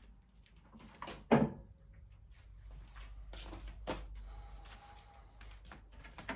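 Scattered knocks and clicks from parts and tools being handled while working on a lawn mower, the loudest a sharp knock about a second in.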